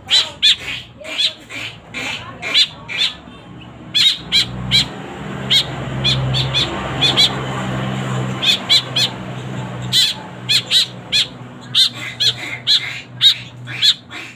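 Fledgling white-breasted woodswallows calling over and over with short, loud calls, several a second. A steady low hum swells underneath in the middle and fades again.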